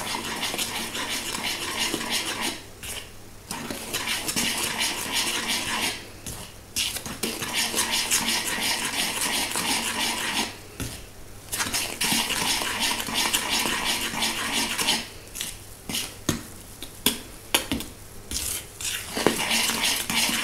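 A metal utensil stirring flour into thick sour-cream cake batter in a mixing bowl, scraping and clinking against the bowl in long stretches with brief pauses. Toward the end the strokes come as separate clicks.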